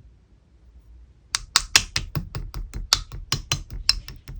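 Clear slime being worked by hand, giving a quick series of sharp clicks and pops, about five a second, starting about a second and a half in.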